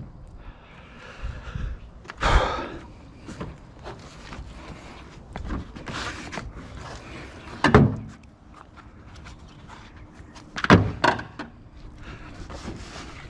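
A series of separate knocks and bangs with quieter clatter between them, four of them loud, as heavy scrap and gear are moved and set down inside an enclosed cargo trailer.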